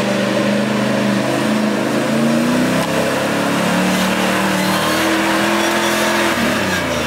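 Land Rover Discovery 1's 3.9-litre engine revving hard under load on a muddy climb. Its pitch steps up a couple of seconds in, holds high, then falls away near the end.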